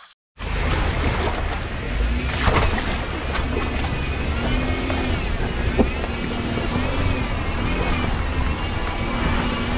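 A Jeep crawling a rocky trail, heard from a camera mounted on the vehicle: a steady low engine and drivetrain rumble under heavy wind buffeting on the microphone. It starts abruptly just after the start.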